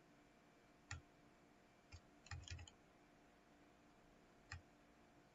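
Faint clicks of a computer mouse and keyboard: a single click about a second in, another near two seconds, a quick run of three or four just after, and one more near the end.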